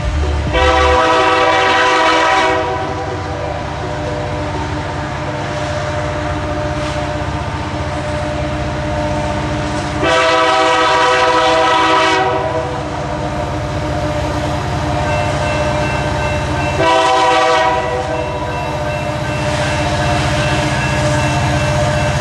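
Approaching diesel locomotive sounding its multi-chime air horn: a long blast about half a second in, another long one around ten seconds in, and a short blast near seventeen seconds. Under the horn is the steady low rumble of the locomotive, growing slightly as it nears. Long, long, short is the opening of the standard grade-crossing signal.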